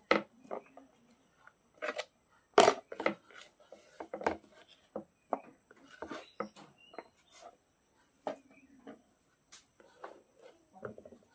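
Metal spoon and hands knocking and scraping on a plastic tray and hollowed sponge gourd: a scatter of short, irregular clicks and knocks, the loudest about two and a half seconds in, over a faint steady high-pitched whine.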